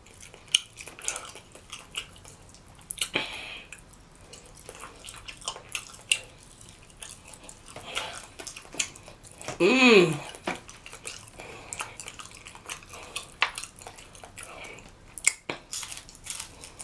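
Close-up wet chewing and lip-smacking of rotisserie chicken: many small wet clicks and smacks. About ten seconds in comes one short, loud hum of enjoyment that rises and falls in pitch.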